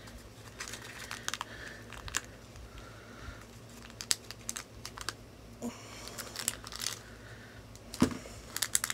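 Blind-box toy packaging (cardboard box and plastic wrapping) handled and unpacked by hand, crinkling and tearing, with scattered light clicks and taps and a sharper tap about eight seconds in.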